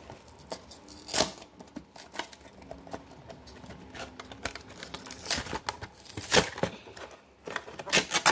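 Cardboard trading-card hanger box being torn open by hand: irregular ripping and rustling of the paperboard, with a few sharper tears about a second in, around six seconds in and near the end.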